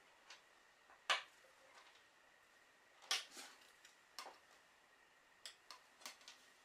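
A few light clicks and taps as a rotary cutter and an acrylic quilting ruler are picked up and set down on a cutting mat, the sharpest click about a second in and a small cluster a few seconds later.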